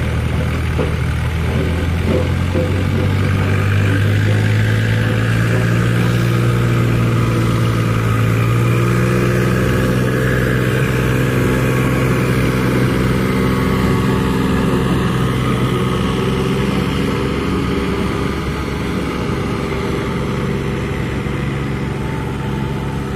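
John Deere tractor's diesel engine running steadily under heavy load as it hauls a loaded earth trolley uphill; its pitch climbs slightly over the first several seconds and then holds.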